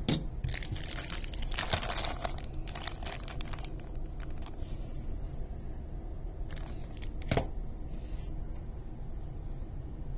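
Clear cellophane plastic wrapping crinkling and tearing as hands handle it, in a dense run of about three seconds starting half a second in. A few clicks follow, with a single knock about seven seconds in.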